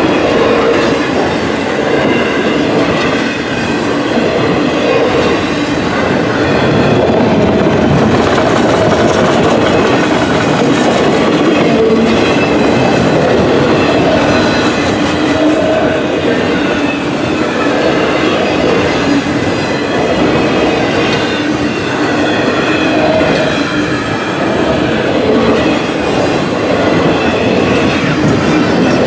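Freight train of autorack cars rolling past close by: a steady, loud rumble and clatter of steel wheels on the rails, with a faint wavering squeal from the wheels.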